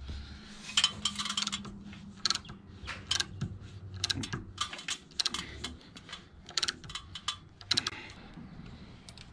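Irregular series of sharp metallic clicks and clacks from hand tools being worked, about a dozen over several seconds.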